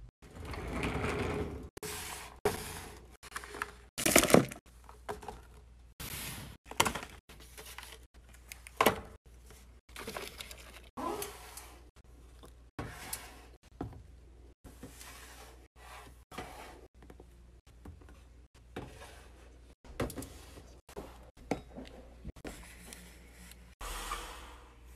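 A string of short knocks, thuds and rustles from household things being handled, loudest about four and nine seconds in, each cut off abruptly. Plastic jars and bottles are among the things being handled.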